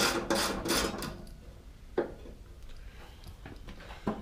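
Socket wrench with a 3/8 socket ratcheting in quick rasping strokes, about three a second, while loosening screws on the heater's wiring cover. The strokes stop about a second in, a single sharp click comes about two seconds in, and the ratcheting starts again near the end.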